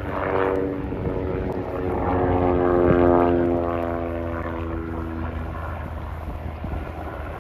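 Fokker D.VII replica's 200 hp Ranger 6-440 inverted six-cylinder engine and propeller in a flyby. It swells to its loudest about three seconds in, then the note drops in pitch and fades as the plane passes.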